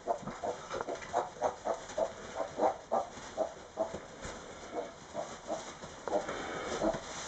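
Tamworth sow grunting in short, regular grunts, about two to three a second.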